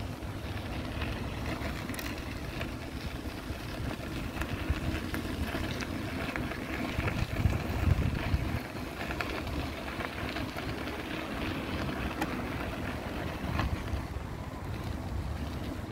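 Outdoor city street ambience: a steady low rumble with wind on the microphone, growing louder for a moment about halfway through, with a few faint clicks.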